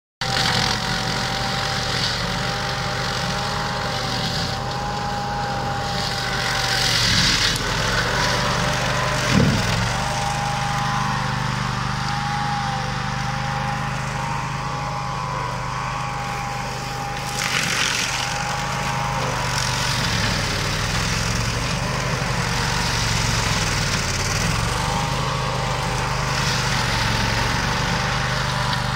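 Grillo Climber 10 four-wheel-drive ride-on mower's 27 hp petrol engine running steadily, with a constant high whine over the engine note. Brief surges of rushing noise come about 7 and 17 seconds in.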